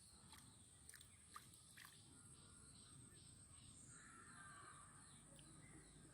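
Near silence, with a few faint clicks in the first two seconds and a faint steady high hiss.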